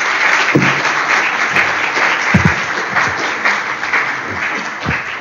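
Audience applauding at the end of a talk, dying down near the end.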